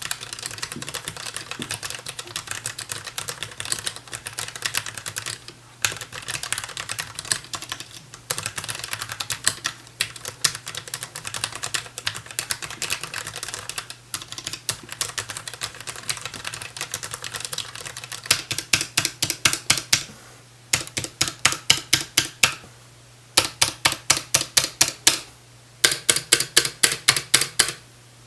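Mechanical keyboard with low-profile Kailh linear red switches, typed on quickly in a steady stream of light clicks. About two-thirds of the way through this gives way to louder single keys pressed repeatedly, about four strokes a second in runs with short pauses: the long stabilized keys rattling on their stabilizers.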